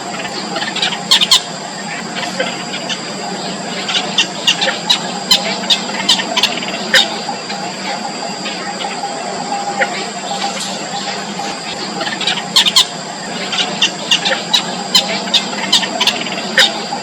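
Four-day-old nestlings begging: short, sharp, high-pitched cheeps in rapid clusters, coming and going, over a steady high-pitched tone.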